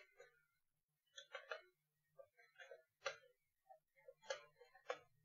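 Light clicks and taps in irregular clusters, about six bursts with gaps between them.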